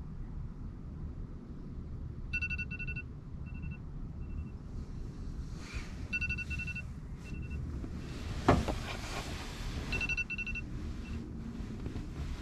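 Phone alarm beeping: clusters of short electronic beeps that repeat about every four seconds, over a steady low rumble. A single bump about eight and a half seconds in.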